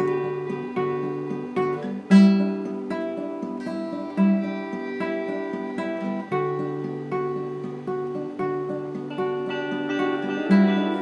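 Instrumental guitar music: an acoustic guitar picking and strumming chords, with firmer struck chords about two seconds in, about four seconds in and near the end.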